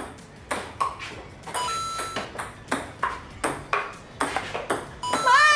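Table tennis rally: the plastic ball clicking off the paddles and the small table about two to three times a second. A voice cries out right at the end.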